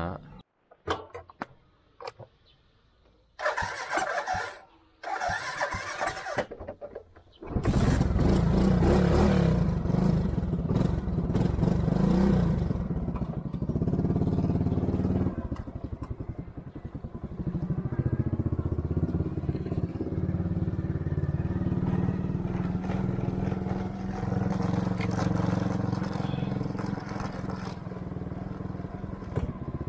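Motorbike engine starting and then running steadily as the bike rides along. It comes in loudly about seven seconds in, after a couple of short bursts of noise.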